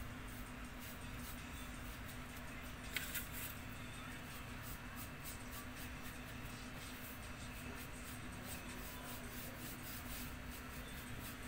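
Flat paintbrush faintly scratching across paper as poster paint is brushed on in repeated strokes, over a steady low hum, with one slightly louder scrape about three seconds in.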